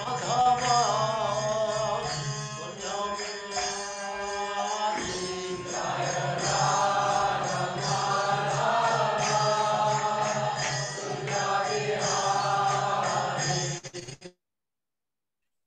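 Devotional mantra chanting: a voice singing over a steady low drone, which cuts off suddenly near the end.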